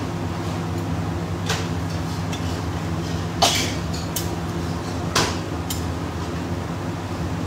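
Metal spatula stirring curry in a steel kadai, knocking and scraping against the pan four times, loudest about three and a half seconds in, over a steady low hum.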